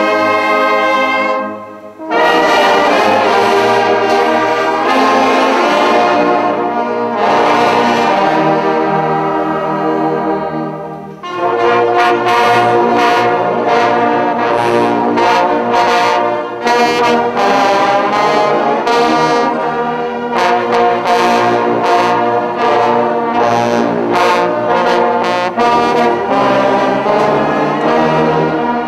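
Large brass band of saxophones, trombones and sousaphones playing full, sustained chords. The music breaks off briefly about two seconds in and again about eleven seconds in, then moves to short, clipped notes in the second half.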